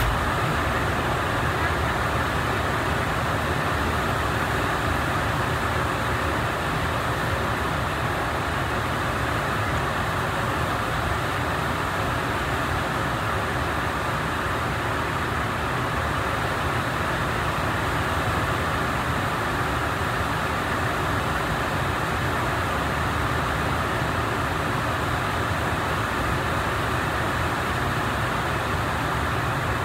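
Steady, even rushing noise that does not change, with no distinct clicks or voices in it, and a single short click right at the start.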